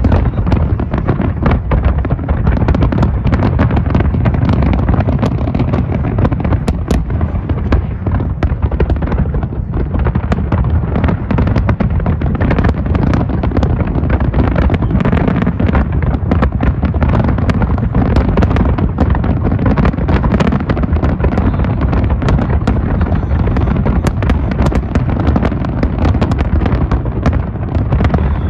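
Large fireworks display at its height: an unbroken barrage of overlapping shell bursts, the low booms running together with no pause.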